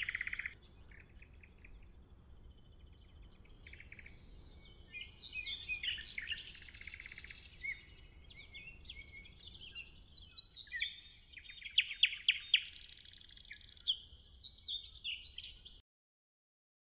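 Woodland songbirds singing and chirping, with overlapping calls and fast trills of several birds. The sound cuts off suddenly about a second before the end.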